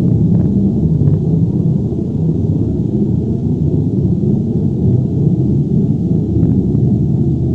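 Earthquake rumble sound effect: a deep, continuous rumble with its weight in the low bass and little above, steady in level, with a few faint ticks in the first second or so.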